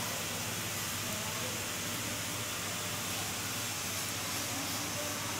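Steady hiss of workshop background noise with a faint low hum under it, unchanging throughout.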